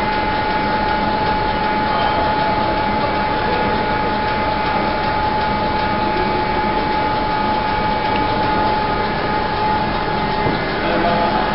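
Steady machinery running: an even, unchanging drone with a constant high whine running through it.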